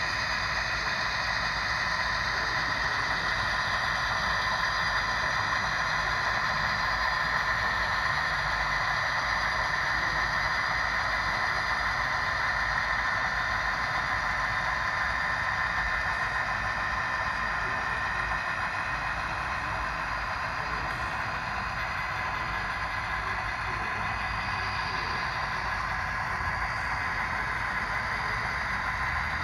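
Model railroad diesel locomotives running past with a coal train: a steady engine-like hum with a constant high whine over it.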